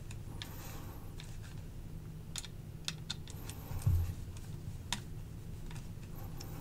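Sparse small clicks and light ticks of a Wiha screwdriver bit working the small scale screws of a Spyderco Smock folding knife, with the knife shifting in the hand. A low thump about four seconds in.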